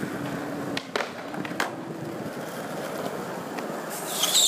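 Skateboard wheels rolling over smooth painted concrete, a steady rumbling hiss with a few sharp clicks from the board. Near the end a high, wavering whistle-like tone comes in.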